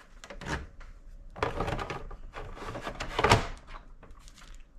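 A plastic snap-on vent cover being handled and pressed onto the PS5 console's plastic shell: a series of short plastic clicks and knocks, the loudest a little over three seconds in.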